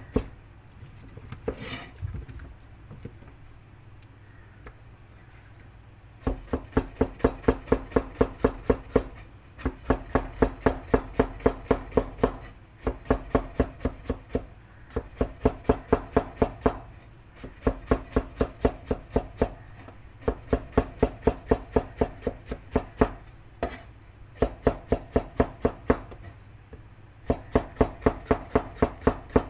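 Knife chopping food on a cutting board in quick, even strokes of about four or five a second. The strokes come in runs of a few seconds with short breaks, and start about six seconds in after a quieter stretch.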